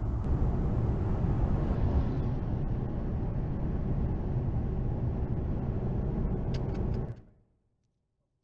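Steady rumble of tyres and engine inside a car driving at motorway speed, picked up by a dashcam microphone. It fades out about seven seconds in.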